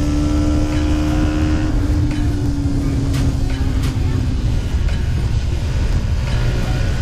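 Yamaha MT-125's single-cylinder engine with an Arrow exhaust running at cruising speed, its note sinking slowly as the throttle eases. Heavy wind rush on the rider's microphone runs underneath.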